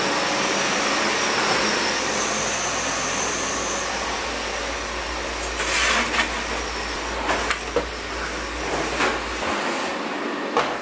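Cordless stick vacuum cleaner running steadily with a high motor whine, with a few knocks about midway as the head and wand bump the floor and furniture.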